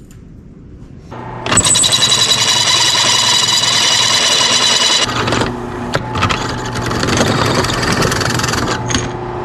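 Drill press running with its bit cutting through a flat steel piece, a high screech over the motor hum. There are two cutting runs, with a short let-up just past halfway, and the drill stops near the end.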